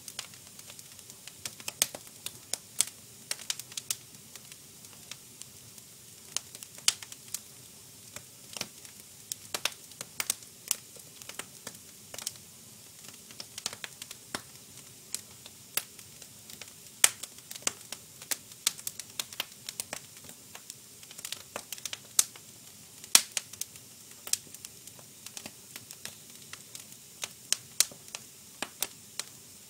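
Fire crackling: sharp, irregular snaps of varying loudness, several a second, over a faint steady hiss.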